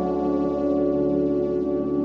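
Ambient background music: several sustained ringing tones held steadily together, with no beat.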